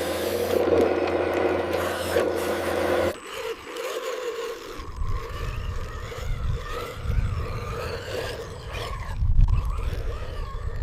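Radio-controlled construction models working: a steady motor and gear whine for about three seconds, then an abrupt change to uneven low rumbling with scraping.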